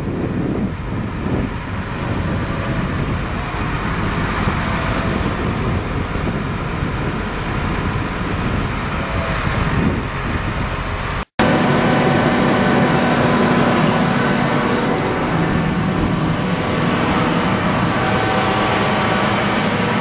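Cedarapids CR461 asphalt paver's Cummins 6BTA 5.9L diesel engine running steadily, with a short break about 11 seconds in, after which its even hum comes through more clearly.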